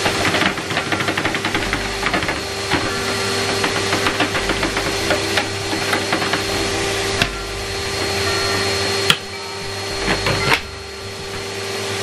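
Shark upright vacuum cleaner running on carpet: a steady motor hum under a rushing airflow. There is a rapid crackle of picked-up debris in the first couple of seconds and two sharp clicks near the end, after which the noise drops briefly.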